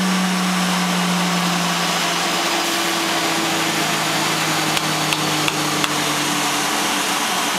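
Wooden-clog copying lathes and shaping machines running: a loud steady whir with a strong hum that drops slightly in pitch about two seconds in. A few light knocks come a little past the middle.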